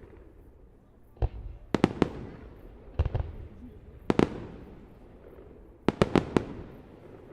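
Aerial fireworks bursting: sharp bangs, some single and some in quick clusters of two to four, about nine in all. Each is followed by a rumbling, echoing tail.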